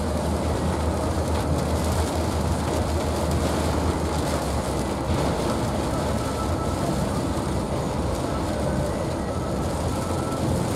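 Steady road rumble heard inside a moving vehicle's cabin, with heavy rain hissing on the roof and windshield.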